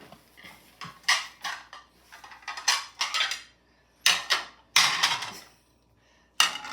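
Vintage Spode china dishes clinking and clattering against each other as pieces are handled and lifted out of a box, in a string of short irregular knocks and rattles.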